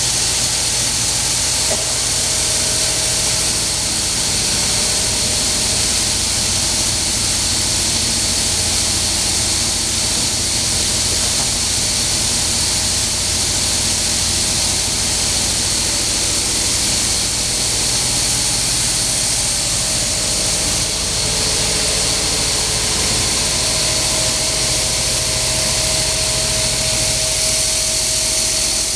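Small stainless-steel olive paste machine running steadily on its electric motor: an even mechanical hiss and hum, with a faint whine that comes and goes.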